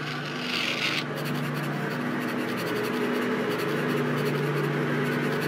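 Pen scratching across paper in quick strokes as words write themselves onto a book page, over a low, steady droning tone.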